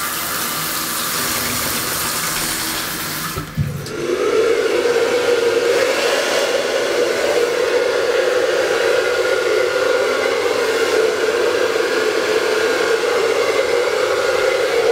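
Shower head spraying water for the first few seconds. Then, from about four seconds in, a wall-mounted hair dryer blowing steadily and louder, with a constant hum under the rush of air.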